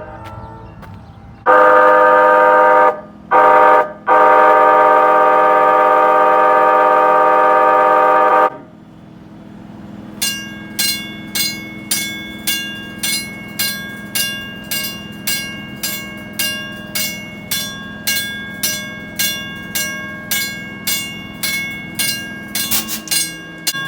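Nippon Sharyo P865 light rail car's horn sounding a chord: about a second and a half of horn, a brief toot, then a long blast of about four and a half seconds. A few seconds after it, the car's warning bell starts ringing steadily at about one and a half to two strikes a second.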